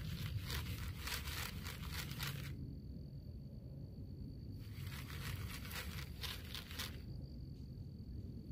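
Close rustling and crinkling in two bursts of a couple of seconds each, the first at the start and the second about five seconds in, with a quiet pause between; a faint steady high tone shows in the quiet stretches.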